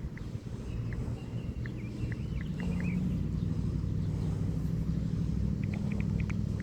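A low, steady engine rumble that grows louder about two and a half seconds in, with short high chirps and a brief warbling call over it.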